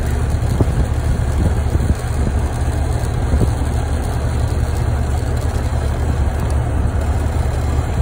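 Carrier heat pump outdoor unit running: a steady low hum from the compressor and condenser fan, with a few light clicks.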